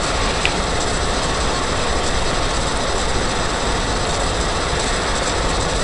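Steady background hiss: an even noise with no rise or fall.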